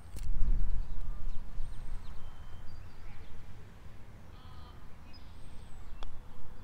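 A low rumble on the microphone in the first couple of seconds, with birds chirping in the background. About six seconds in, a single light click as a putter strikes a golf ball on a short putt.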